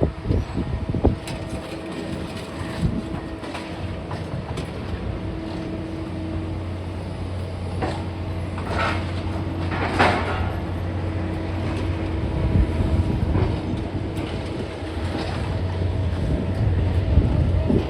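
Heavy diesel demolition machinery running, with a steady engine drone that deepens and strengthens about six seconds in, a held hum, and scattered metal clanks and knocks. Two louder rushing bursts come around nine and ten seconds in.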